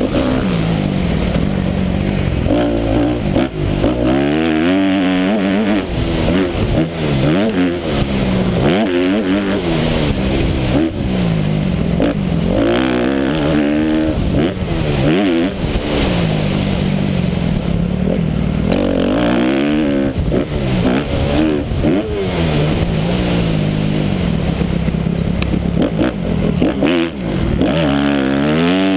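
Honda 250 motocross bike's engine revving hard and falling back again and again as the rider accelerates, shifts and slows for corners, heard up close from the bike.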